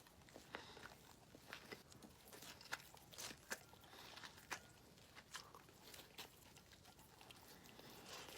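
Faint chewing of a burger: irregular short clicks and crunches of mouth and food.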